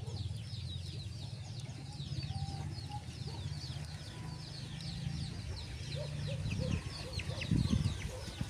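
Birds chirping steadily in quick, high chirps that fall in pitch, over a low steady hum, with a couple of louder low bumps near the end.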